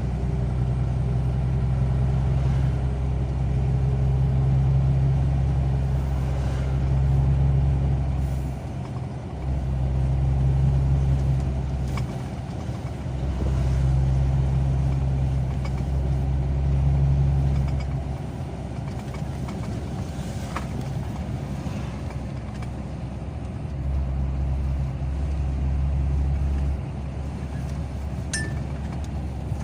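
Car driving on the road: a steady low rumble of engine and tyres that swells and eases every few seconds, with a few faint clicks.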